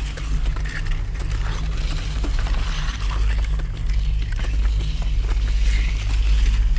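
Inflatable boat's outboard motor running at a steady speed, a low pulsing drone, under a hiss of wind and water spray with scattered ticks.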